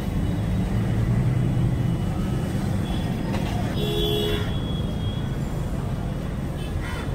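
Steady low rumble of street traffic, with a short vehicle horn toot about four seconds in.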